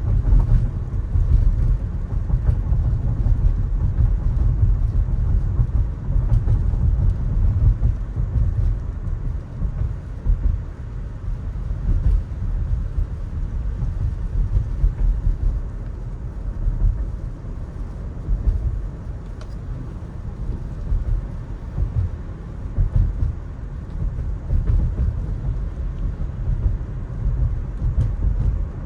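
Low, steady rumble of an electric car driving on wet city roads: tyre and road noise with no engine note, rising and falling a little.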